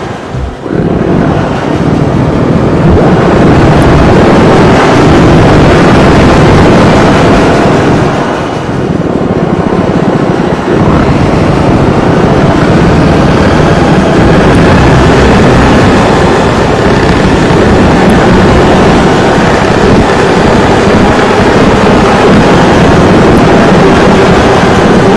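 Harsh noise music: a loud, dense wall of distorted noise. It dips briefly just after a second in and again around eight to nine seconds in.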